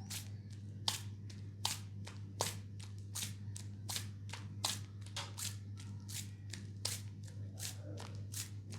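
Hands working on bare skin as the knee is cleaned: a string of short, crisp pats at irregular intervals, about one or two a second, over a steady low electrical hum.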